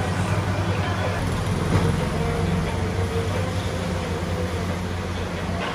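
A metal lathe running steadily, its motor giving a constant low hum over a broad machining noise.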